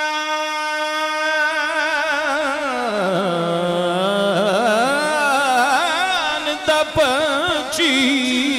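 A man's voice singing a Punjabi naat: he holds one long steady note, then breaks into wavering, ornamented melodic runs that dip low around three seconds in and rise again toward the end.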